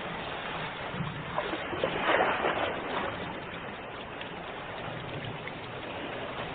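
Ocean waves: a steady wash of surf, with one wave breaking and surging louder about two seconds in before it settles back to the hiss.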